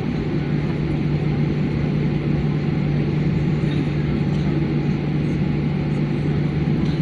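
Airplane's steady drone: a constant low hum under an even rushing noise, with no change in pitch or level.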